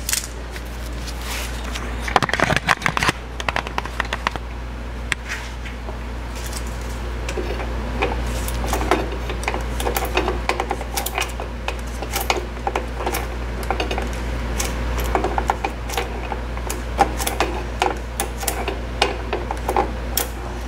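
Irregular small metal clicks and taps as the self-adjuster screw of a Fox-body Mustang rear drum brake is turned in by hand and with Robo-Grips pliers to collapse the brake shoes. A steady low hum runs underneath.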